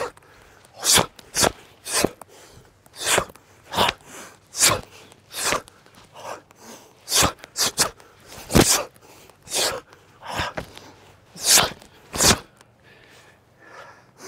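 Sharp, forceful exhalations from a karate practitioner, one with each block and strike of a fast solo kata, coming about once a second at irregular intervals.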